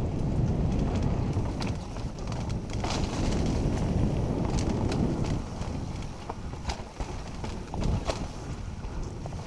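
Mountain bike descending rough dirt singletrack: a continuous low rumble of tyres and rushing air, broken by sharp knocks and clatters as the bike hits rocks and roots. The rumble eases a little about halfway through.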